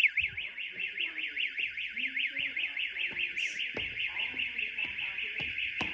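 Electronic school fire alarm sounding a fast rising-and-falling sweep, about four to five sweeps a second, dropping sharply in level right at the start and then carrying on steadily. A couple of sharp knocks come near the middle and near the end.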